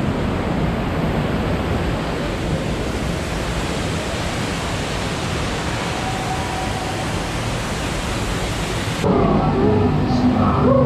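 Steady rushing of a waterfall. About nine seconds in it cuts abruptly to a dark ride's soundtrack: sliding calls over steady low tones.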